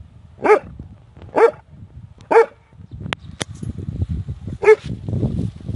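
A dog barking: four short single barks, the first three about a second apart and the fourth after a pause of about two seconds.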